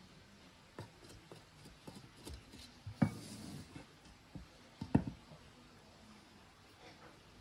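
A wooden spoon scraping and tapping inside a nonstick pot as rice is spread and pressed, with a scatter of small knocks and two sharper knocks about three and five seconds in.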